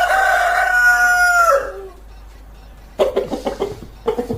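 Aseel rooster crowing: one long held crow that trails off just under two seconds in, followed about three seconds in by a run of short clucks.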